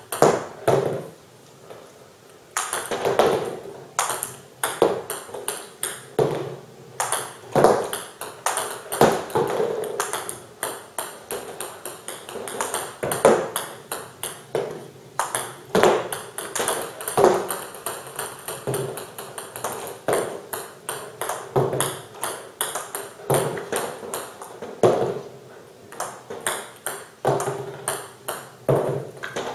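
Table tennis serves one after another: paddle strikes and sharp bounces of 40mm celluloid-type balls on the table, a run of sharp clicks in clusters every second or two.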